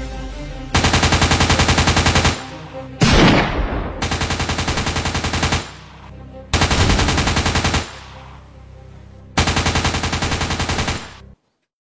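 Machine-gun sound effect: four bursts of rapid, evenly spaced gunfire, each lasting about a second or a second and a half, with a loud blast between the first and second bursts. Background music plays at the start.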